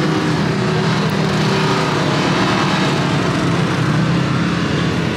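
Small off-road vehicle engines, ATVs and a side-by-side UTV, running steadily with a low, even hum.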